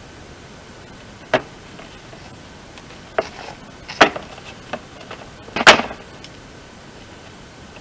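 A few irregular sharp knocks and scrapes from hands working inside a VW Golf IV front wheel arch, clearing packed sand, with the loudest, longest scrape a little before the end.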